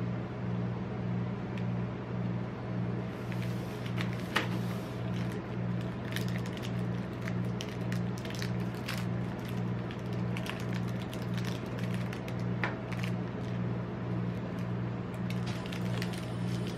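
Snickers bar wrappers crinkling and tearing as gloved hands unwrap the bars, a run of short sharp crackles starting about three seconds in. Under it runs the steady low hum of the rolled-ice-cream machine's refrigerated cold plate.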